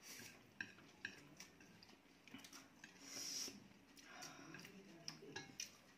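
Faint eating sounds: scattered light clicks of chopsticks against plates and chewing of spicy noodles, with a brief hiss about three seconds in.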